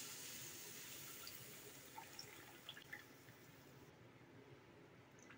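Faint hiss of tamarind water meeting hot oil in a kadai, fading away over the first few seconds as the pour stops, with a few soft drips around two to three seconds in.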